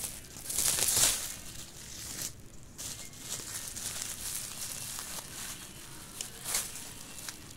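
Clear plastic bubble wrap crinkling and rustling as it is unwrapped from a small fan, loudest in the first second or so, then softer crinkles, with another short rustle near the end.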